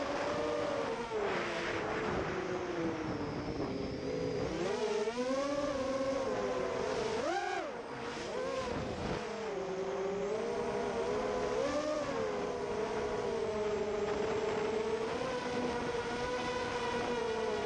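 Small FPV quadcopter's brushless motors whining, the pitch rising and falling with throttle bursts, then holding steadier for the last several seconds.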